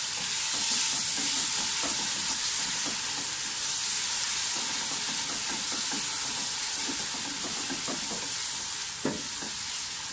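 Onions and ginger-garlic paste sizzling in hot oil in a pressure cooker, stirred and scraped steadily with a wooden spoon, with a sharper knock about nine seconds in.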